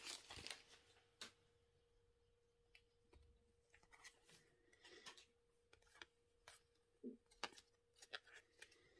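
Near silence with faint, scattered rustles and clicks of a freshly opened foil pack and its stack of football trading cards being pulled out and fanned by hand, over a faint steady hum.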